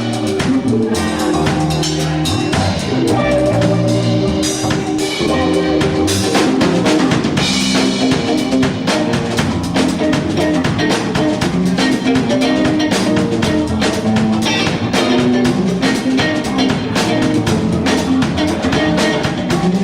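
A live band plays an upbeat song, with a drum kit keeping a steady beat on bass drum and snare.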